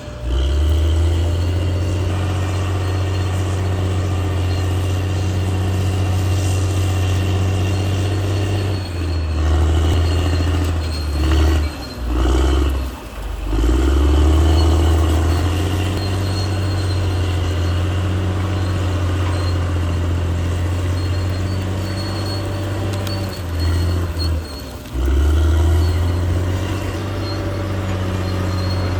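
CAT D6R XL bulldozer's diesel engine running steadily under load. Its note drops off and picks back up twice, about twelve and twenty-four seconds in.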